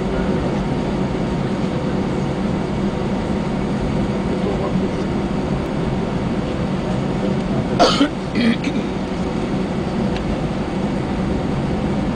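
Airbus A320 cabin noise while taxiing: a steady rumble with a constant engine hum. About eight seconds in, two short sharp sounds come one right after the other.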